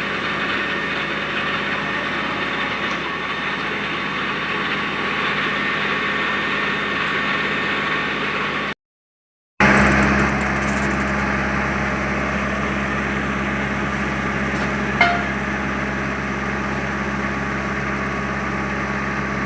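Vögele paver running steadily after an auger shaft bearing replacement, with no bearing noise heard. The sound drops out briefly about nine seconds in, and there is a short tick about fifteen seconds in.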